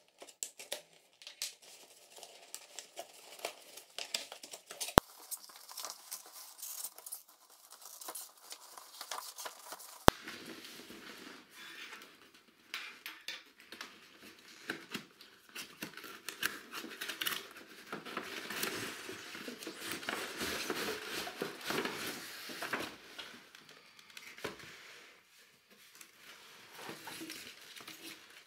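Cardboard box and packing handled and opened by hand: irregular rustling, scraping and crinkling of cardboard, with two sharp clicks about five and ten seconds in, and busier handling noise in the middle.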